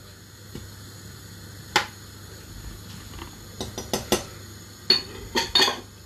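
A metal spoon clinking and tapping against a small bowl and a cooking pot: a sharp clink about two seconds in, a quick run of clinks around four seconds, and a few more near the end.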